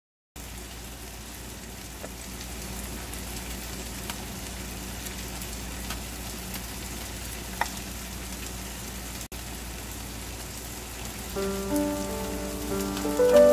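Cheese sauce mixture sizzling steadily in a pot on the stove as it is stirred, with a few faint clicks. Music comes in near the end.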